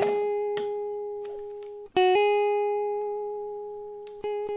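Background music of plucked strings: a long note struck at the start and again about two seconds in, each left to ring and fade, then a quicker run of notes near the end.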